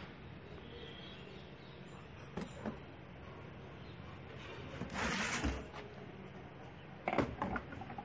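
Handling noises of a plastic wet/dry vacuum head and its cartridge filter: a few light clicks, a noisy rustling burst with a dull thud about five seconds in, and a quick cluster of knocks near the end.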